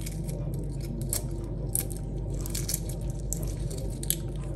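Shells being cracked and peeled off cooled hard-boiled eggs: scattered small crackles and crunches at irregular intervals, over a steady low hum.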